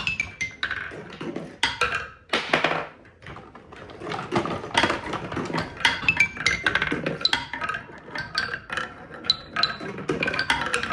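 Marbles rolling and clacking down a toy marble run track: a dense clatter of small clicks with high ringing clinks. It thins out about two seconds in and gets busier again from about four seconds.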